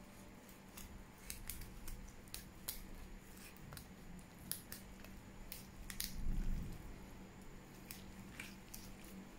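Chef's knife cutting along a salmon fillet's middle bones: a string of small, irregular sharp clicks as the blade passes the bones, which is the sign the cut is running right along them. A louder low thump comes about six seconds in.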